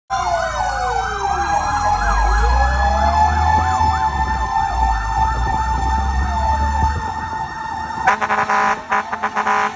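Several emergency sirens sounding together: a fast yelp over a slower wail that falls and rises again, with a steady tone and a low rumble underneath. About eight seconds in, the siren switches to a rapid stuttering pulse.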